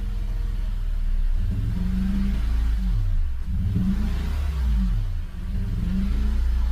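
A 2016 Toyota Tacoma's V6 engine is running rough with a random misfire and a misfire on cylinder number 5. It idles, is revved up and down a few times in the middle, then settles back to idle.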